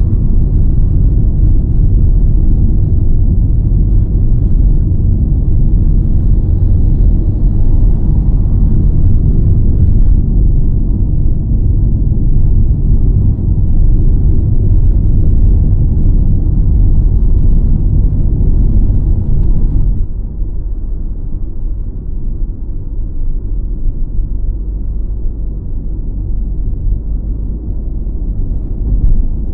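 Road and wind noise heard inside a car moving at speed: a loud, steady low rumble. It drops noticeably about two-thirds of the way through.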